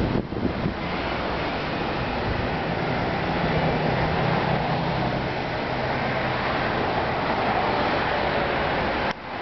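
Steady road traffic noise, with a vehicle's low engine hum that grows stronger in the middle.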